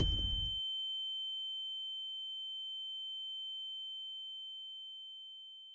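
The tail of a car-crash noise cuts off about half a second in, leaving a single steady high-pitched ringing tone that slowly fades away: the ear-ringing effect used after a crash.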